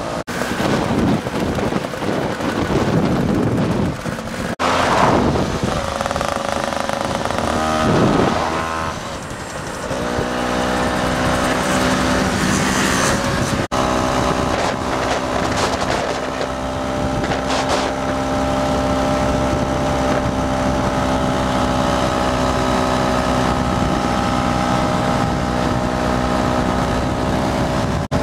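Vespa scooter engines running during a group ride, with wind buffeting the microphone and a few passing swells early on. From about ten seconds in, a steady engine drone with a clear pitch holds to the end, broken once by a sudden short gap.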